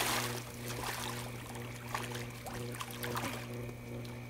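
Swimming-pool water splashing and sloshing as a swimmer goes into a handstand and comes up, loudest at the start and then settling into lighter lapping. A steady low hum runs underneath.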